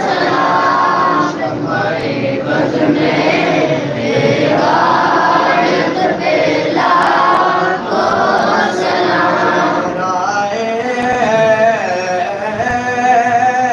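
A group of men chanting a devotional recitation together, their voices overlapping. About ten seconds in, a single male voice stands out, singing a wavering melodic line.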